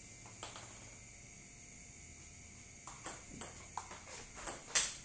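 Table tennis rally: the ball being hit by paddles and bouncing on the table, heard as sharp ticks. There is one lone tick about half a second in, then from about three seconds in a quick run of ticks, roughly three a second, growing louder toward the end.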